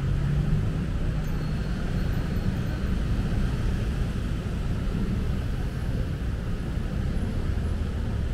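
City street traffic: a steady low rumble of vehicles, a little stronger in the first second or so.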